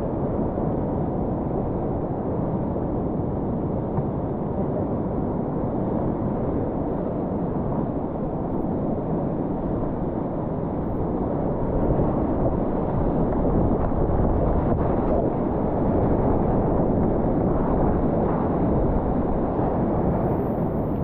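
Whitewater rapids rushing around a kayak, heard from a camera on the boat: a steady, deep rush of water, growing a little louder past the middle.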